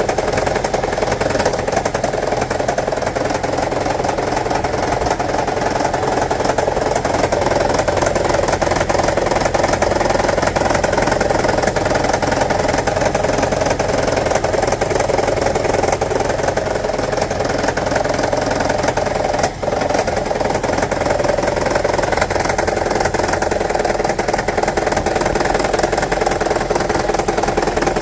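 2009 Toyota Prius's 1.5-litre four-cylinder petrol engine running steadily with a rattle, the engine fault that goes with a P0304 code: a misfire on cylinder 4. The sound dips briefly once about two-thirds of the way through.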